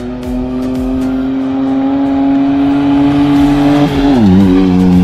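Maruti Suzuki Alto hatchback with a modified exhaust driving past at speed. Its engine note climbs steadily and gets louder as it approaches, then drops sharply in pitch about four seconds in as it passes.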